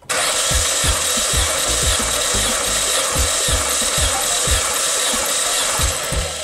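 Opel Z12XEP 1.2-litre 16-valve four-cylinder engine cranked on its starter motor for a compression test of the second cylinder. It runs steadily with an even pulse about three times a second, starting suddenly and easing slightly just before it stops near the end.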